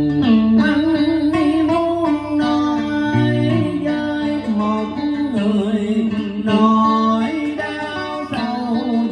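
A man singing a Vietnamese cải lương-style song into a microphone, with a plucked guitar accompanying him in sliding, ornamented notes.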